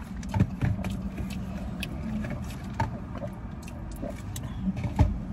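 Steady low hum of a car sitting idling, with a few sharp clicks and knocks over it; the loudest knock comes about five seconds in.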